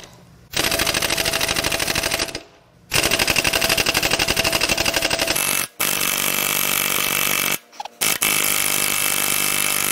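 Pneumatic impact wrench hammering on the crankshaft pulley bolt of a Toyota 1FZ-FE inline-six, in four bursts of about two seconds with short pauses between. The bolt is seized tight and does not break loose.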